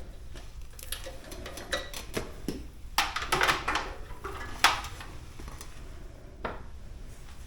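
Scattered light clicks and clinks of small hard parts and tools being handled, with a short cluster about three seconds in and two sharper single clicks later.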